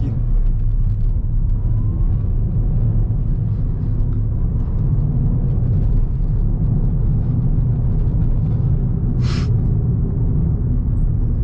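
Steady low rumble of engine and road noise inside the cabin of a moving Ford New Fiesta 1.6 with a manual gearbox, with one brief hiss about nine seconds in.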